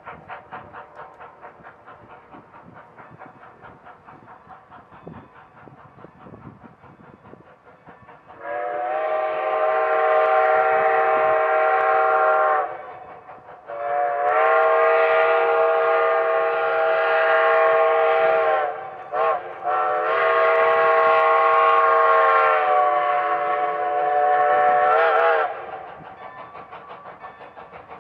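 Double-headed steam locomotives working a freight train: steady exhaust chuffs, then a loud steam whistle of several notes blown long, long, a very brief double toot, and long, the pattern of a grade crossing signal.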